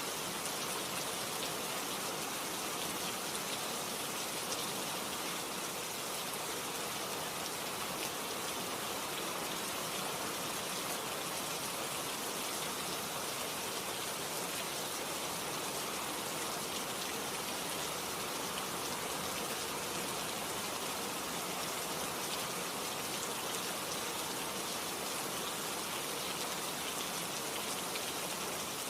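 Steady rain falling, an even hiss of many small drops with fine pattering ticks throughout.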